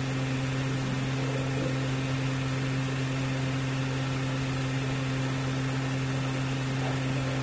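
Steady low hum with an even hiss behind it, unchanging throughout: the background noise of the recording during a pause in the talk.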